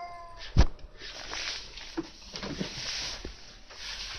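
A cat's meow trails off at the start, then a single sharp knock about half a second in, followed by rustling with soft clicks.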